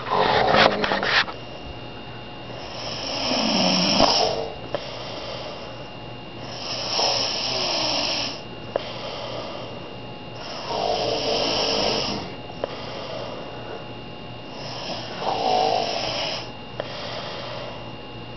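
A sleeper with a cold snoring, about four long snores some four seconds apart. There is a brief clatter in the first second.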